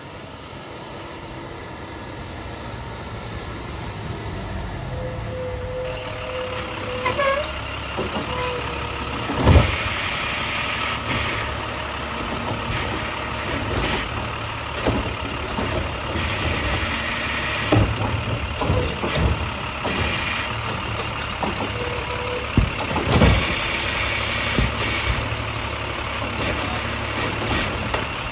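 International side-loader garbage truck approaching and pulling up, its diesel engine growing louder, with a short squeal as it stops. The Heil STARR automated arm then grabs and dumps two carts: hydraulic whine as the arm works and several loud clunks as the carts bang against the hopper.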